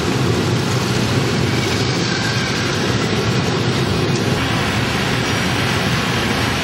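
Street traffic of many small motorbikes and scooters passing, a steady loud din of their engines and tyres.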